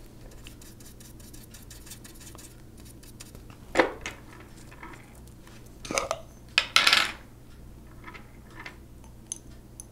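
Small glass jar of Gamsol solvent being opened and dipped into: a few sharp clinks of its metal lid and the brush against the glass, about four, six and seven seconds in. Before them come faint scratchy strokes of a small brush on paper.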